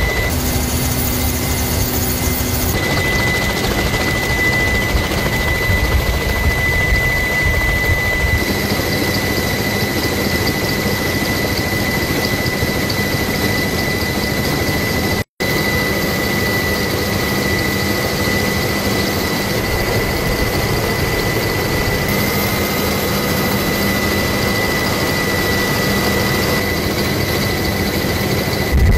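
Helicopter turbine engines and rotors running in flight, heard from on board: a dense steady rumble under a constant high whine. The sound drops out for an instant about halfway through.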